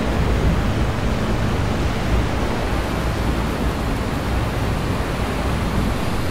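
Whitewater rushing steadily around the bow of a kayak, close to the microphone.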